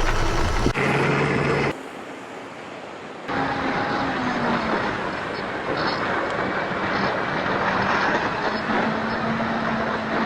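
Electric motors and propellers of an E-flite OV-10 Bronco RC model plane running, buffeted by strong wind on the microphone. The sound cuts abruptly a couple of times in the first few seconds, then settles into a steady rushing with a faint motor hum.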